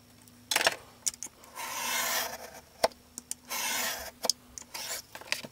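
Craft knife cutting homemade chipboard along a steel ruler: two long cutting strokes, about a second and a half and three and a half seconds in, with short sharp clicks of blade and ruler between them. The blade is dull and drags through the board.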